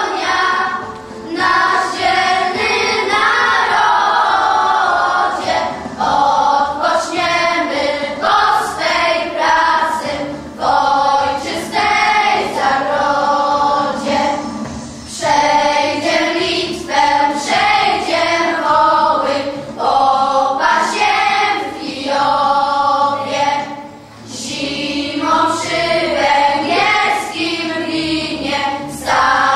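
Children's choir of boys and girls singing a song together, phrase after phrase with short breaths between.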